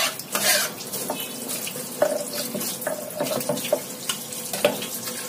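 Water from a pull-down kitchen faucet sprayer running and splashing onto a wooden cutting board as it is scrubbed, with a few light knocks against the board.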